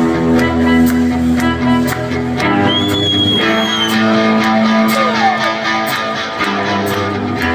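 Live band playing an instrumental intro: guitars and sustained chords over a steady beat, with a high gliding tone about three seconds in.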